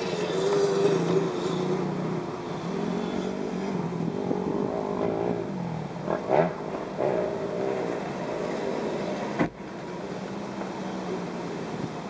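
An off-road vehicle's engine runs steadily, wavering a little, as it drives along a sandy dirt trail. There is a short louder surge about six seconds in and a sharp knock about nine and a half seconds in.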